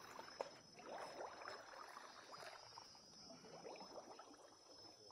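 Faint, irregular splashing and sloshing of shallow, muddy swamp water, stirred close by around a fishing rod and hand.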